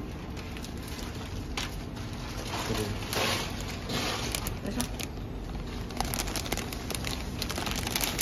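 Clear plastic packing film crinkling and rustling as it is threaded by hand through a packing machine's rollers, with scattered light clicks and knocks from the rollers and frame.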